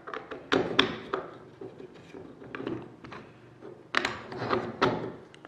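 Sharp clicks and knocks of hard parts of a homemade strap-bending die being fitted together by hand, with light rubbing between. A cluster of clicks comes just after the start and another about four seconds in.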